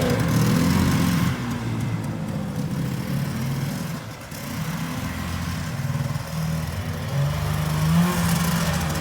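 1974 John Deere JDX8 snowmobile's two-stroke engine running, with an exhaust leak, its revs easing off, dipping about four seconds in, then picking up again near the end.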